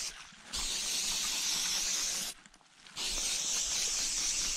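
Aerosol can of Sawyer permethrin spray hissing in bursts of about two seconds with short breaks between them, sprayed onto clothing.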